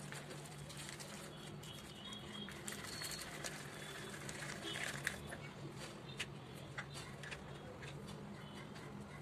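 Red slime being squeezed and kneaded between the hands, giving a run of small sticky clicks and crackles.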